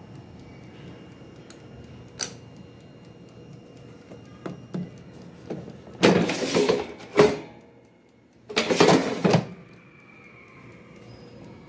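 Air fryer basket drawer pulled out and pushed back in: two loud sliding scrapes about six and nine seconds in, with a sharp clack between them, over the fryer's steady low running hum.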